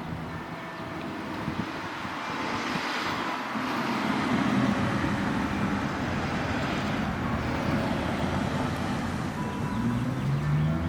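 Road traffic: a passing vehicle's tyre and engine noise swelling a couple of seconds in and staying up, with a low engine note showing near the end.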